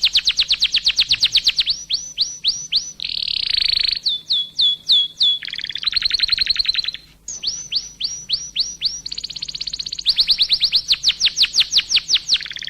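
Songbird singing fast runs of repeated downward-sweeping whistled notes, about eight a second, broken by a buzzier harsh phrase about three seconds in and a short pause about seven seconds in.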